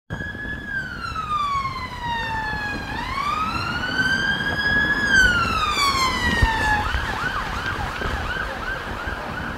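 British police car siren: two slow wail sweeps, falling, rising and falling again, then about seven seconds in it switches to a fast yelp of about three short sweeps a second.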